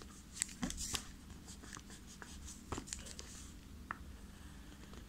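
Pen drawing lines on ruled notebook paper: faint, scattered scratches and taps of the pen tip, a cluster in the first second and a few more later.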